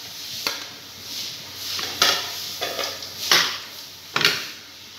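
Metal spatula scraping and clinking against a steel frying pan as grated boiled potato is stirred into fried vegetables, with about four sharper knocks among the scraping.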